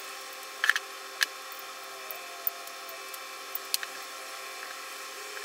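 Short metallic clicks and taps from a Holley carburetor's aluminium float bowl and its long bowl screws being handled and fitted: a double click a little under a second in, a sharper one just after, and a few lighter ticks later.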